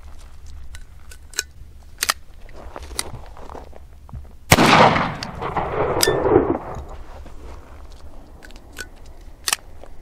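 A single shot from a Rossi Brawler .410 break-action single-shot pistol loaded with a #6 birdshot shell, about halfway through, echoing for a couple of seconds. Light metallic clicks of the action come before it, and a sharp click follows as the pistol is broken open and the spent shell is extracted.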